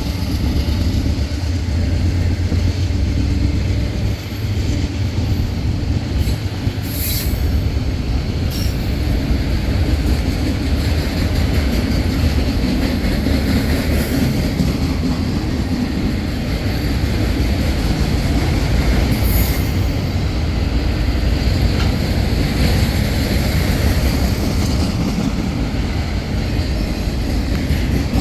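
Train cars rolling past in a steady heavy rumble of wheels on rail, with a couple of brief high wheel squeals.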